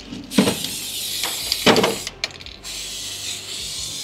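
Aerosol can of developer spraying with a steady hiss, breaking off briefly about two seconds in and then spraying again. Two short knocks come about half a second in and again a little later. The developer is being sprayed over the bleed valve joint for a leak check.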